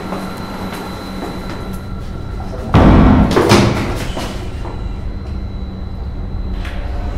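A sudden loud bang about three seconds in, hitting twice within a second and trailing off in a rumble, over a steady low ambient drone.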